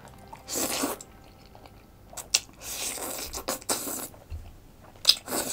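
A person slurping long flat pasta noodles off a fork, four loud wet slurps with chewing and a couple of sharp clicks between them.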